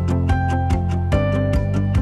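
Background music: a melody of held notes over a bass line, with a steady beat of about two or three strokes a second.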